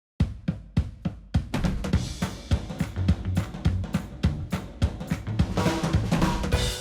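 Background music: a drum kit beat of kick, snare and hi-hat, with more instruments joining near the end.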